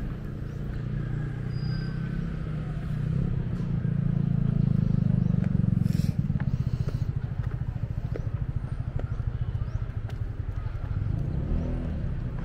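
A motor vehicle's engine running close by, growing louder about four seconds in and then carrying on with a fast, even pulse.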